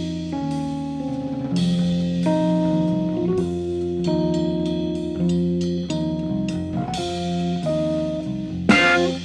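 Jazz-fusion band playing an instrumental live: drum kit and bass under held, shifting chords, with a cymbal stroke about once a second and a sharp loud accent near the end.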